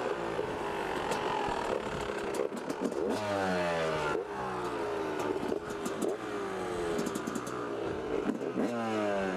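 Yamaha YZ250 two-stroke single-cylinder engine, freshly started and still cold, revved with several throttle blips, each dropping back toward idle, as the bike is ridden off slowly. A few sharp mechanical clicks and some clatter come in between the revs.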